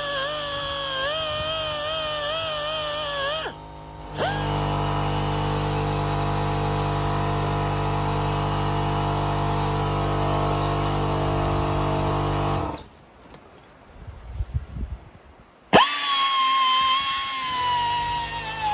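Small high-speed grinder with a grinding stone whining as it grinds paint off the ATV's steel frame, its pitch wavering and dipping as it bites. It stops about three and a half seconds in and spins straight back up, runs steady for several seconds, then stops. After a pause with a few light knocks it starts again near the end with a sharp rising whine that sags under load.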